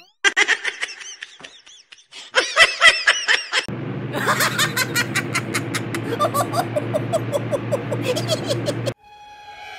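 A person laughing in high, squealing bursts. From about four seconds in, an electric floor fan runs with a steady hum while someone giggles over it and a quick, even run of clicks goes along.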